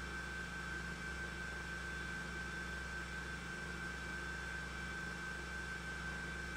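Steady hiss with a low hum and a thin, constant high-pitched whine: the noise of 16mm film playback with no programme sound on the track.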